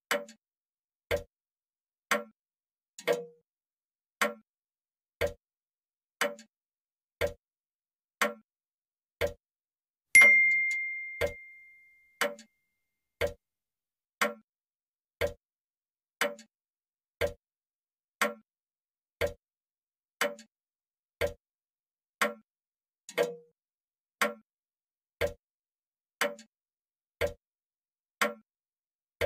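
Grandfather clock sound effect: a steady tick-tock, about one tick a second. About ten seconds in, a single clear bell-like ding rings out, the loudest sound, and fades over about two seconds.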